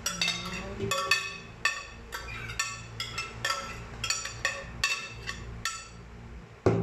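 Metal slotted spoon clinking and scraping against a glass bowl and a stainless steel pot as chopped meat is scraped from one into the other: irregular ringing clinks, about two or three a second, with a louder knock near the end.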